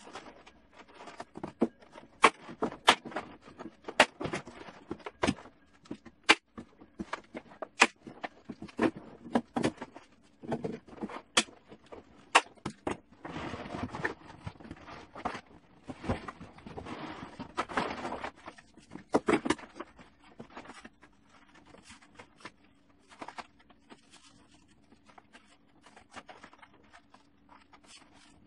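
Plastic tarp sheeting being unfolded and handled on a wooden workbench: rustling and crinkling, with many sharp taps and knocks as the sheet and a wooden batten move against the bench. The rustling is loudest in two stretches near the middle, and a faint steady hum comes in during the second half.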